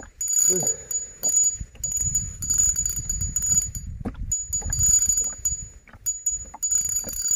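A high, steady whistling tone that keeps starting and stopping, in stretches of about a second with short gaps, over a low rumble.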